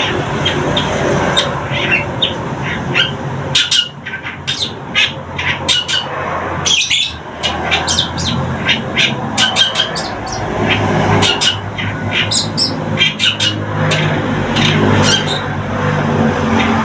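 Young long-tailed shrike (cendet) in a cage, just starting to sing: a dense, continuous chatter of short, sharp chirps and squawky notes. A steady low rumble runs underneath.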